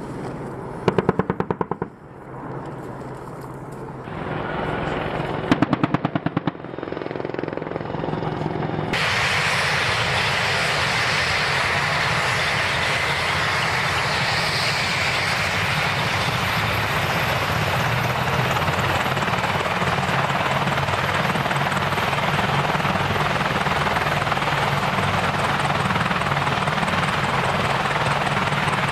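Two short bursts of rapid gunfire from an AH-64 Apache's 30 mm M230 chain gun, about one and five seconds in. About nine seconds in, the sound changes to a steady, loud running of Apache helicopters on the ground, rotors turning, with a high steady whine.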